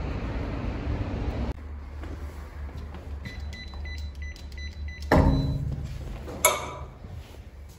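City street noise for about a second and a half, then a run of short, evenly spaced high electronic beeps. A sudden loud noise follows, and a sharp click as a glass door is opened by hand.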